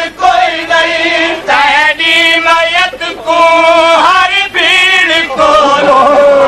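Male voice chanting a Punjabi noha, a Shia mourning lament, in long held notes that waver and slide between pitches, with short breaks for breath.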